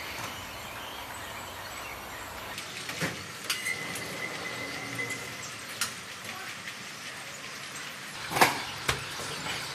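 Factory-floor noise of a TV assembly line: a steady wash of machinery and conveyor noise with scattered clacks. A brief high tone sounds about four seconds in, and a loud knock comes about eight and a half seconds in.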